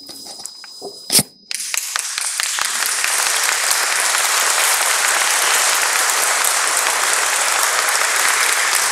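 A sharp knock about a second in, then an audience breaks into applause, which builds over a second or so and holds steady.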